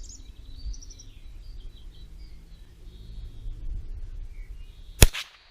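A single sharp gunshot about five seconds in, fired at a squirrel in a treetop. Before it, birds chirp over a low outdoor rumble.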